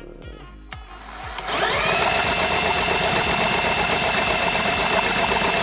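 Power drill spinning up about a second and a half in and running steadily at one pitch, turning over the Honda ATC70's small engine to check for spark.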